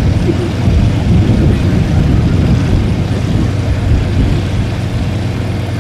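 Pickup truck driving past towing a loaded flatbed trailer: steady engine and road noise, easing slightly near the end.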